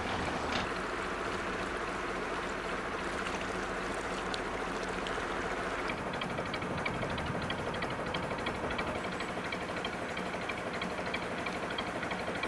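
Narrowboat's diesel engine running steadily at cruising pace, with water washing along the hull. About halfway through the sound shifts and a fast, even mechanical ticking comes in over the engine hum.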